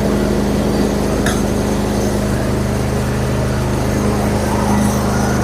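Lawn mower engine running steadily with the blades engaged, the deck working properly after new brake pads and the drive belt refitted. A short click sounds about a second in.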